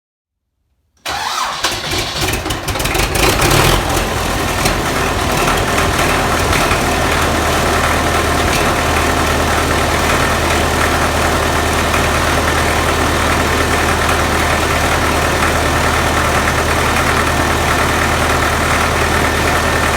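Tractor engine cranked by its starter and catching about a second in, running unevenly for a few seconds, then settling into a steady idle. This is the first start after the tractor was split and fitted with a new flywheel ring gear.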